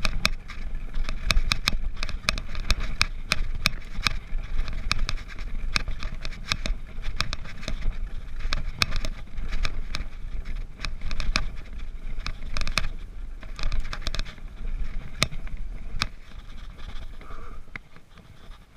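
Downhill mountain bike ridden fast over a rough dirt and grass track: a constant low wind rumble on the microphone, with frequent sharp clicks and rattles from the bike as it hits the bumps. It eases off and gets quieter over the last couple of seconds.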